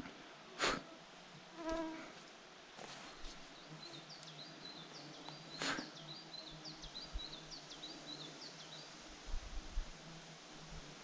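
Flying insects buzzing, faint and steady. A run of short high chirps goes from about three to nine seconds in, and two sharp knocks come just under a second in and again near six seconds.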